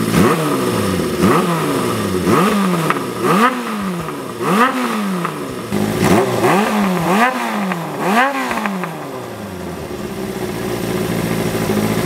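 Honda CB400Four's air-cooled inline-four engine, breathing through a Yoshimura 4-into-1 collector exhaust, being blipped on the throttle again and again: about ten quick revs that rise and fall. It settles to a steady idle for the last few seconds.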